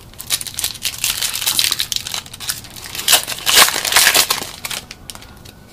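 Trading card pack wrapper crinkling and crumpling loudly in the hands for about four and a half seconds, a dense run of crackles.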